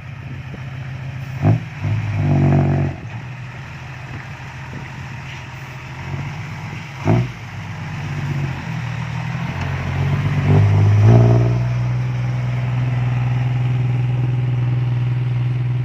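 Heavy diesel engine running, revving up briefly twice, once near the start and again past the middle, with two sharp knocks. After the second rev it settles into a louder, steady run.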